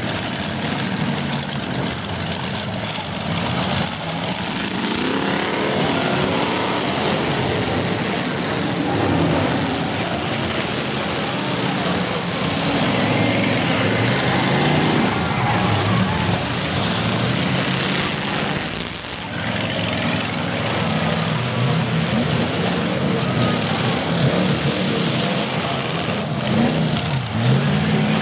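Several full-size demolition derby cars running and revving hard at once, engines rising and falling in pitch as they push and ram each other, with occasional knocks of car bodies colliding.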